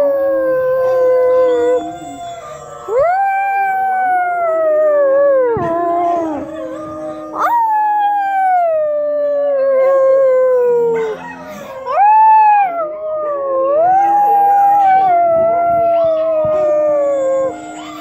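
Canine howling: a run of long howls, each rising quickly then sliding slowly down in pitch, with a second, lower voice held steady beneath several of them.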